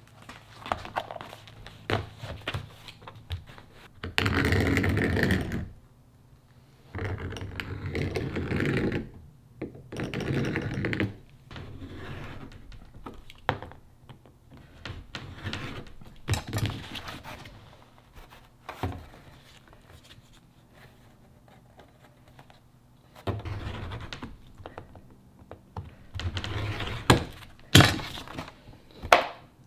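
A knife scoring a sheet of black ABS plastic in several long scraping strokes, with knocks and taps as the sheet and tools are handled on the workbench. Near the end come a couple of sharp cracks as the scored plastic is snapped apart.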